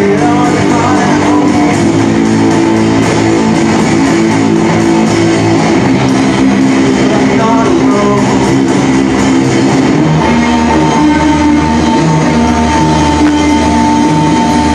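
Indie rock band playing live: electric guitars, bass and drums together at a loud, steady level. About ten seconds in, a high guitar note is held steadily over the band.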